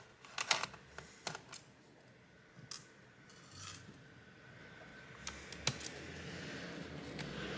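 Scattered small clicks and taps of a screwdriver and fingers working on a laptop's plastic and metal internals during disassembly, a cluster of them in the first second and a half and a few more later.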